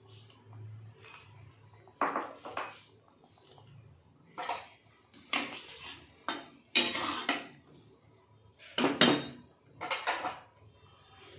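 A spatula stirring a pan of curry, scraping and clinking against the kadai in a run of short strokes roughly a second apart, beginning about two seconds in.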